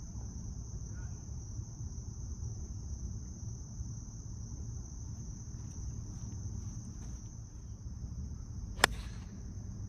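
A golf club strikes a ball once near the end with a single sharp crack, over a steady high-pitched insect chorus.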